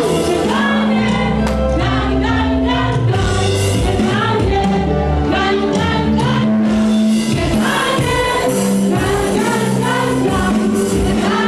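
Live gospel worship: a congregation singing together as a choir over instrumental backing with held bass notes and a steady beat.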